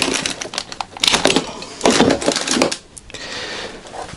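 Cables, plugs and tools being rummaged through and pulled out of a plastic crate: clattering and rustling in a few bursts, quieter near the end.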